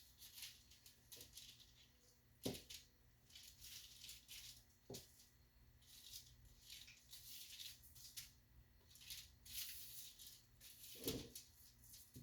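Faint rattling shakes from a seasoning shaker over raw chicken, in short bursts, with a few soft knocks.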